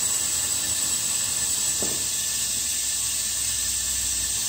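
Compressed air hissing steadily through a venturi-type vacuum coolant refill tool, pulling a vacuum on a car's cooling system before refilling it with coolant.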